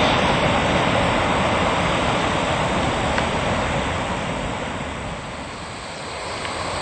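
Freight train passing: a steady, noisy run of wagons on the rails mixed with wind on the microphone, easing off about five seconds in and picking up again near the end.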